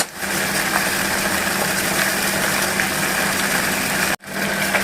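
A small pot of bilimbi flowers in rock-sugar water simmering on a low flame as it reduces: a steady sizzling bubble with a low hum. The sound cuts out for a moment near the end.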